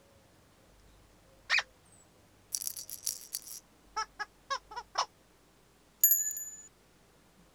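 Cartoon sound effects: a short squeak, then a brief rattle. After that come five quick high squeaks, and a bell-like chime rings about six seconds in and fades.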